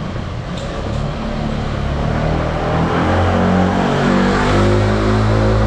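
A motorbike engine running and getting steadily louder as it comes closer, its pitch shifting up and down in steps.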